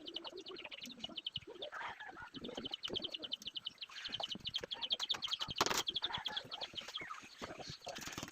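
A bird's rapid, high-pitched trill of evenly spaced chirps, about ten a second, with scattered knocks and one sharp clack about five and a half seconds in.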